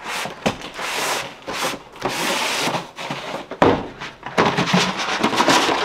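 A cardboard shipping box being opened and a large rolled-up paper wall calendar pulled out of it: cardboard and paper scraping and rustling, with a thump about three and a half seconds in.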